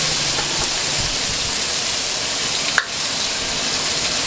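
Food frying in hot oil with a steady sizzle, and a single sharp knock about three seconds in.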